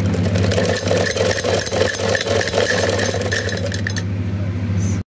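Domestic sewing machine running steadily as it stitches fabric: a constant low hum with fast, even needle clatter. It cuts off suddenly near the end.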